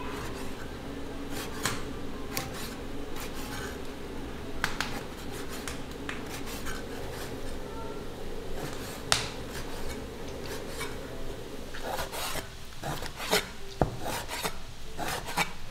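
Rasping, rubbing sounds of kitchen food preparation, with scattered light knocks and clicks: one sharp click about nine seconds in and a cluster of knocks near the end.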